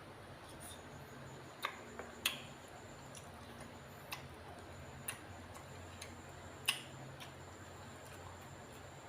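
Eating sounds: about seven short, sharp clicks and taps at irregular intervals, as of a utensil or bones against a dish, over a faint steady hum.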